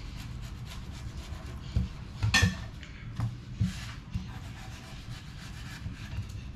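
Kitchen knife slicing through a peeled melon and knocking on the cutting board: scattered soft thuds and scraping strokes, the loudest a couple of seconds in.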